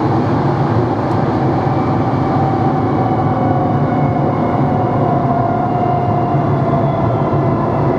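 NMBS/SNCB AM96 electric multiple unit running, its traction motors whining steadily over a low rumble. The whine's pitch falls a little in the second half, as the train slows.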